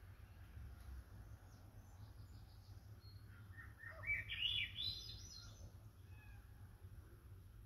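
Raven calling: a quick run of short notes that climbs in pitch, about four seconds in, with a few faint single notes around it, over a steady low rumble.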